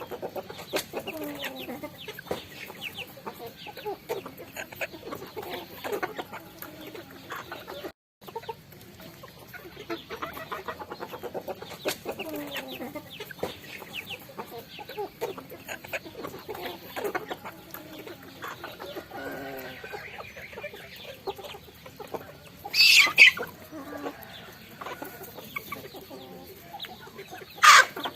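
A flock of chickens clucking softly while pecking at rice, with a steady patter of quick beak clicks. Two loud, short squawks cut through near the end.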